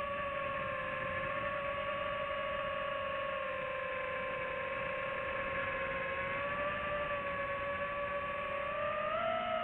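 FPV quadcopter's motors and propellers whining at a steady pitch, drifting slightly with throttle and rising briefly near the end.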